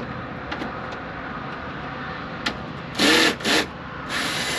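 Cordless drill driving out a screw from a scooter's plastic front panel: two short whirring bursts about three seconds in, then a longer run of about a second near the end. A steady hum of the scooter's engine running lies underneath.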